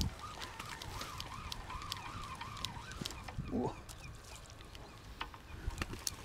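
Spinning reel being cranked to wind in a hooked fish: a faint whirr that rises and falls with each turn of the handle, about three turns a second, stopping after two to three seconds, with small ticks.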